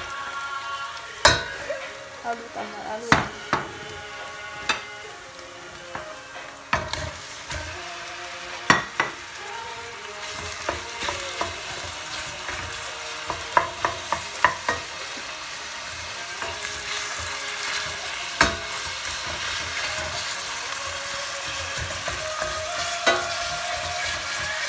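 Minced meat and chopped onions sizzling in oil in a stainless steel pot, being stirred with a wooden spoon that knocks against the pot now and then. The sizzle grows thicker and steadier in the second half, as the meat starts to fry with the softened onions.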